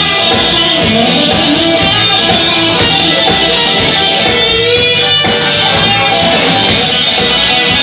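Instrumental rock music with strummed guitar prominent and no singing.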